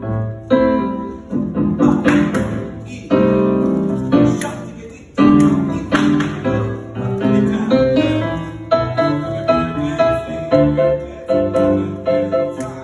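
Piano playing a run of struck chords, each one left to ring and fade before the next, falling into a steady beat about two-thirds of the way through.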